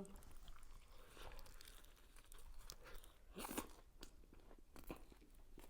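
Faint, close-miked chewing and crunching of food in the mouth, with a louder crunchy bite about three and a half seconds in.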